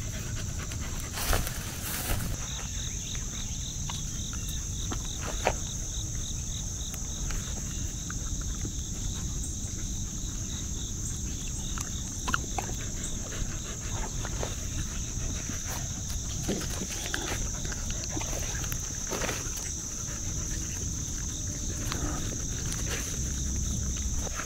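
Steady high-pitched chorus of summer insects, with a second insect's rapid pulsing call joining about two seconds in and dropping out about halfway through. Scattered soft clicks and rustles of dogs moving through grass close by.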